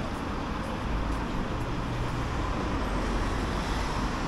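Steady rumble of a moving vehicle or traffic, with the deep low end growing heavier about a second in.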